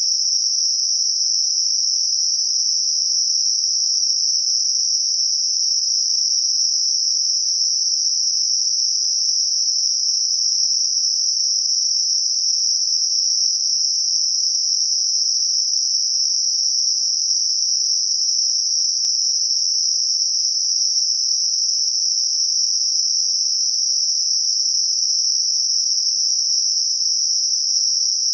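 Synthetic Gaussian narrow-band noise centred on 5.5 kHz: a steady, unchanging high-pitched hiss, used as a masker for high-frequency tinnitus.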